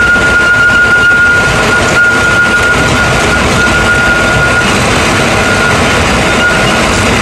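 A machine running steadily with a loud, even noise and a thin high whine that keeps breaking off and coming back, more choppily in the second half.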